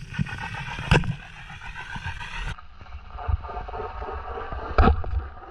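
A boat engine's drone heard through the water, a steady hum of several tones over a low rumble, with two sharp clicks, one about a second in and a louder one near the end.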